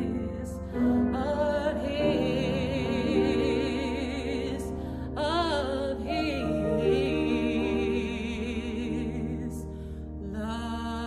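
A woman singing a slow solo with wide vibrato on long held notes, over a steady held accompaniment.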